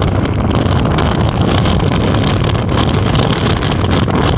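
Passenger ferry under way: its engine runs with a steady drone, mixed with wind buffeting the microphone.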